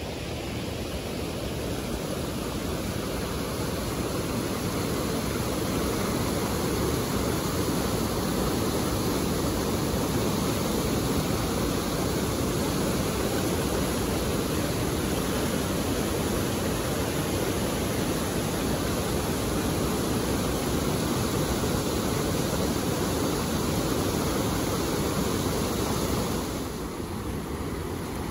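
Steady rush of water from a river waterfall and rapids. Near the end it drops a little in level and turns thinner.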